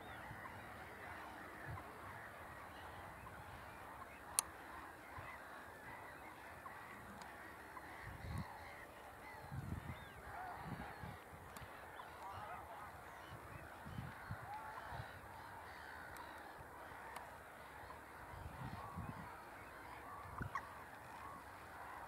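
Faint chorus of distant waterfowl calling, with many small calls overlapping continuously.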